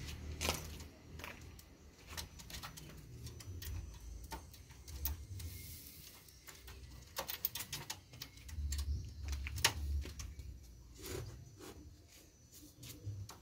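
Scattered light clicks and taps at a wire bird cage holding a green junglefowl, as the bird shifts on its perch and a hand reaches to the cage, over a faint low rumble.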